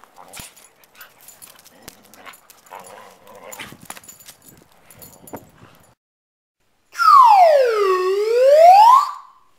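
Faint scuffling and clicking of two dogs play-fighting, one mouthing the other. After a brief dead silence comes a loud whistle-like sound effect that slides down in pitch for about a second, then back up for another, and cuts off.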